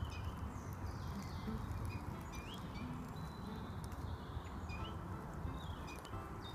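Woodland birds chirping and calling in short, scattered notes over a steady low rumble.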